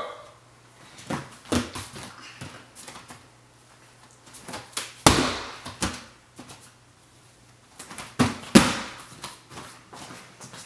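Thuds of a gymnast's hands and feet landing on a folding tumbling mat, with lighter footfalls between. The heaviest thump comes about five seconds in, and two more come close together at about eight seconds.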